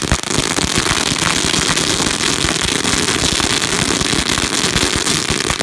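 A string of firecrackers going off on the ground in a rapid, unbroken volley of sharp cracks.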